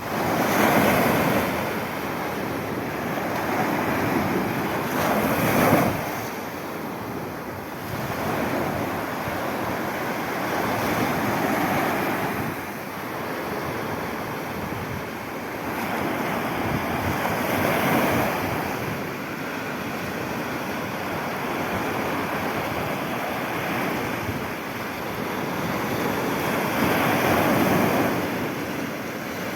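Sea surf: a steady rush of waves breaking and washing in, swelling and easing every few seconds.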